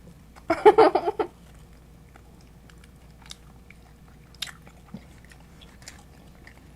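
A person eating pizza: faint scattered chewing and crunching clicks. A short vocal sound comes about half a second in.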